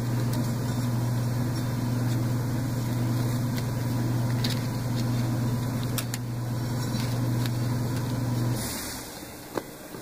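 A steady low machine hum that cuts off about eight and a half seconds in, with a few light clicks from the metal clamp frame being handled as fabric and webbing are loaded.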